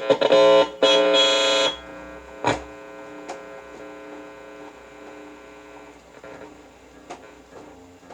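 Guitar played through a Boss compressor pedal: loud strummed chords in the first two seconds and a single short pluck, then a long steady sustain with an amplifier hum underneath.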